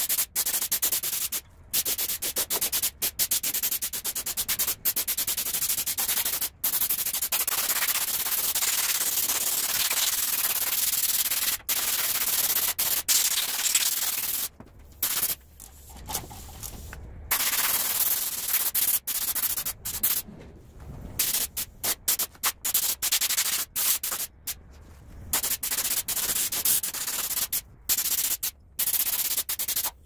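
Compressed-air paint spray gun hissing as black paint is sprayed onto an old engine, in long bursts cut by short breaks each time the trigger is released; the breaks come more often in the second half.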